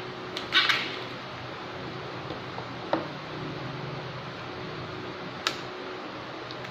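Plastic phone holder being worked by hand, its clamp and lock giving a few short sharp clicks, the sharpest about two-thirds of the way through, over a steady background hum.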